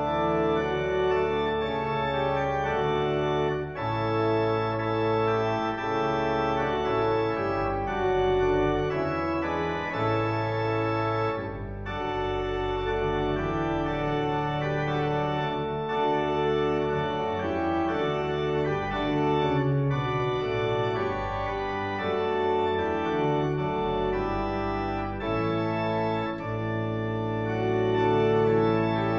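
Church organ playing a postlude: held chords that change every second or two over a bass line.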